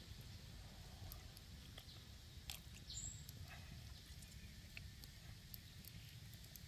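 Faint wet clicks and squelches of hands cleaning and handling raw squid, scattered irregularly over a low steady rumble.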